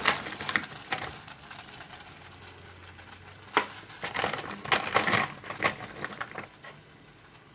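Frozen pork dumplings being added to a pot of boiling water: plastic packaging crinkling and an irregular run of sharp clicks and knocks, busiest in the second half.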